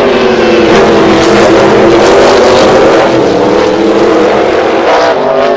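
Race car engine sound effect running at high revs, holding a steady, slightly wavering pitch.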